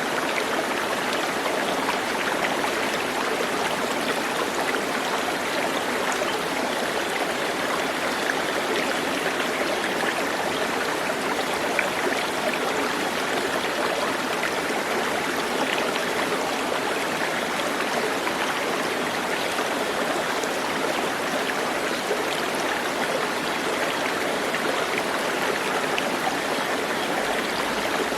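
Steady, even rush of running water, like a stream, with no distinct bird calls standing out.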